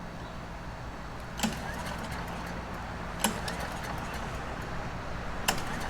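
Small single-cylinder Briggs & Stratton Quantum 5 hp engine on a walk-behind leaf vacuum running steadily, with three sharp knocks about two seconds apart.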